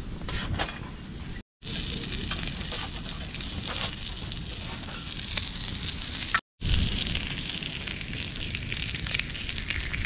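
A slice of meat sizzling on a hot steel griddle plate over a small wood-burning stove: a dense, steady hiss with fine crackles. The sound cuts out twice, briefly.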